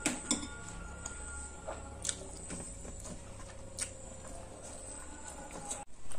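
Close-miked eating sounds, a few short wet clicks and smacks of chewing, with faint background music of held tones underneath and a louder burst right at the end.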